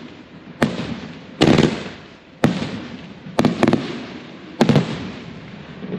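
Jubilation 25-shot consumer firework cake with its shells bursting in the air. There is a sharp bang roughly every second, some in quick pairs, each trailing off in a brief rumble and crackle.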